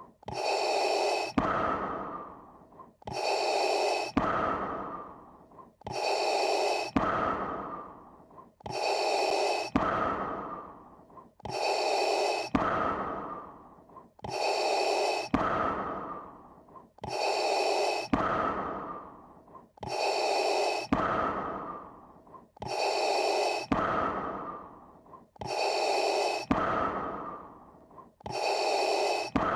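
Darth Vader's respirator breathing sound effect, made by breathing through a scuba regulator: a slow, hissing mechanical breath in and out that repeats about every three seconds.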